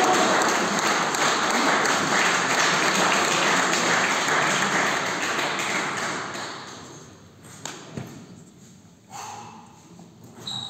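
Spectators applauding after a table tennis rally; the clapping fades out about six seconds in. Then come a few light taps of the celluloid ball near the end.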